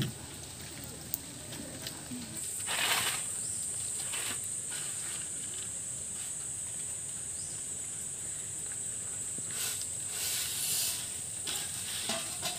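Dry grains and dried insects rustling in a bamboo winnowing tray as they are handled and rice is tipped in, heard as a few short swishes, the loudest about three seconds in and a cluster around ten to eleven seconds. A steady high-pitched insect drone comes in about two seconds in and holds.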